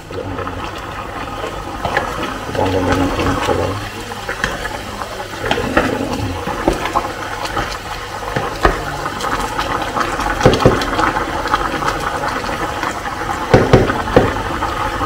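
Adobo sauce boiling hard in a pot around chunks of pork belly, bubbling and spattering as a wooden spoon stirs it. There are a few sharp knocks of the spoon against the pot, the loudest near the end. The liquid is being cooked down.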